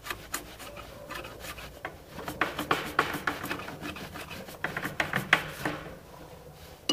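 A knife blade scraping down a wooden stick, a quick run of short rasping strokes that shave off fine wood curls for fire tinder.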